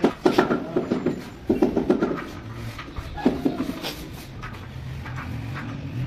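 Short, rhythmic pitched pulses for about two seconds, then a low hum and faint scraping as a wooden straightedge is drawn across a wet sand-cement mortar bed.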